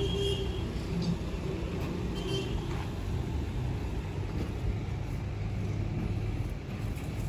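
Steady low rumble of road traffic passing on a nearby road.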